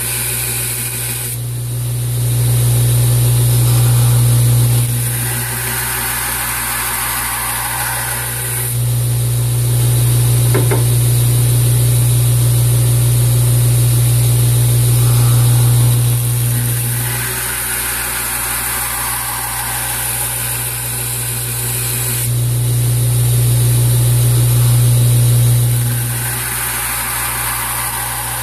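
Wilmont LB1000 2x72 belt grinder running steadily, with a steel knife blank ground against the abrasive belt in passes. The sound swells and eases three times.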